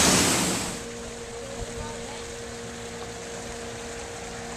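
Rushing water of a cascade in a rocky gorge that cuts off within the first second. It gives way to a much quieter, steady low mechanical hum.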